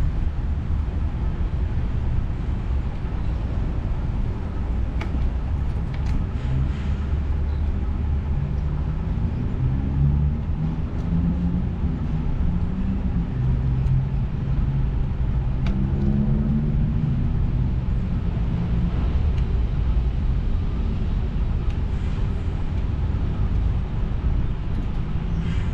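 Steady low rumble of wind buffeting the microphone of a camera on a moving bicycle. Through the middle, the engine of a motor vehicle on the nearby street hums in and fades out again.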